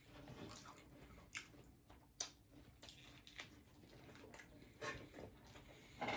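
Faint chewing and wet mouth sounds of people eating, with a few soft clicks scattered through.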